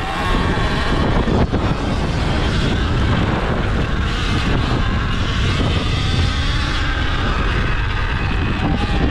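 Sur-Ron Ultra Bee electric dirt bike ridden over a dirt track: a steady rush of tyre, chain-drive and wind noise, with a faint electric-motor whine rising and falling near the start and again near the end.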